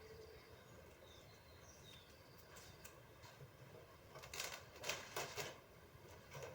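Faint handling noise: a few short rustles and scrapes, bunched about four to five and a half seconds in, with one more near the end, over quiet room tone.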